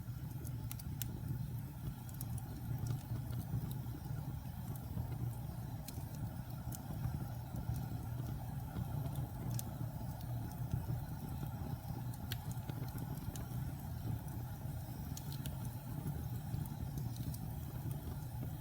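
Wood fire burning in a fireplace: a steady low roar of flames with scattered sharp crackles and pops from the burning logs.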